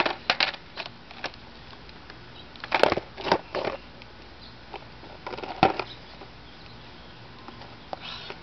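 Skateboard deck and wheels knocking and slapping on asphalt as the rider tries tricks. It comes as a string of separate sharp clacks: a few at the start, a loud cluster about three seconds in, a single hard one mid-way and another near the end.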